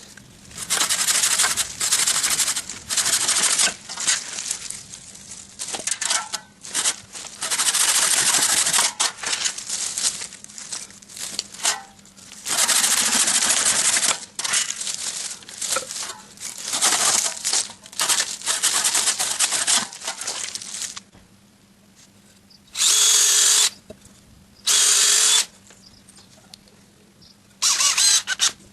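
Power tool working wood, run in repeated bursts of one to two seconds with short pauses, then three shorter separate bursts near the end.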